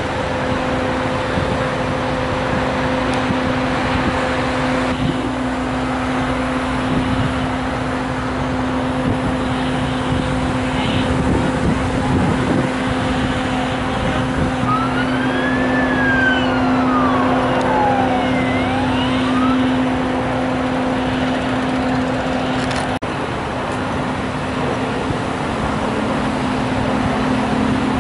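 Steady low hum of idling engines over outdoor traffic noise. Around the middle a siren wails faintly, rising and then falling once.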